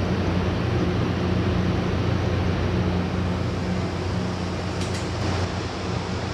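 Window-type air conditioner running with a steady compressor and fan hum, while its low refrigerant charge is topped up. A short faint hiss comes about five seconds in.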